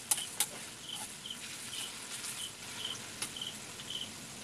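Oil sizzling steadily as squash fries deep-fry in a pan, with two sharp taps of the stirring utensil on the pan just after the start. A cricket chirps about twice a second throughout.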